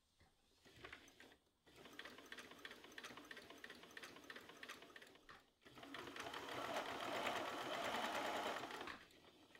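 Electric sewing machine stitching binding onto a quilt, in two runs with a short stop about halfway through; the second run is louder.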